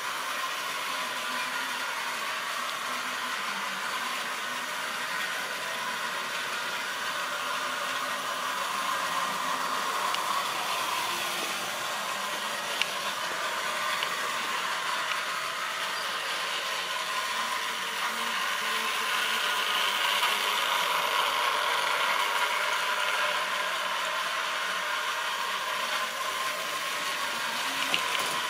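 Model railway locomotive and wagons running on sectional track: a steady mechanical run of motor and wheels, swelling a little about ten and twenty seconds in, with an occasional sharp click.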